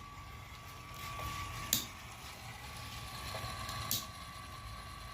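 A small LEGO Power Functions M-motor runs with a steady whine as it slowly drives a 12-tooth ratchet backwards through a tape belt. The ratchet's pawl gives a sharp click as it drops over each tooth, about every two seconds, twice here.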